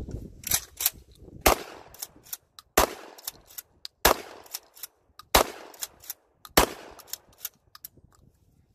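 Dickinson XX3D-M2 12-gauge pump-action shotgun fired five times, about a second and a quarter apart. Between the shots, and once more after the last, come the quicker double clacks of the pump being racked to chamber the next shell.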